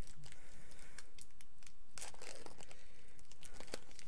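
Pokémon trading card booster pack wrapper crinkling and tearing as it is torn open by hand, in short scattered crackles that are busiest around the middle.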